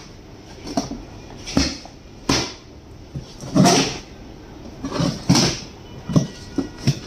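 A cleaver-style knife slicing the packing tape and plastic straps on cardboard shipping boxes, with the cardboard flaps being pushed open: a string of short, irregular rips and scrapes.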